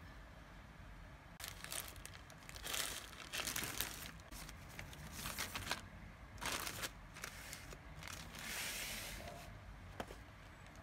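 Plastic courier mailer bag crinkling in irregular bursts as it is torn open and a cardboard box is pulled out, with one light tap near the end.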